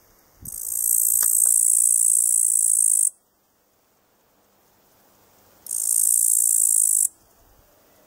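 A grasshopper stridulating in two bouts of high, hissing buzz, about two and a half seconds and then about a second and a half long, each starting and stopping abruptly.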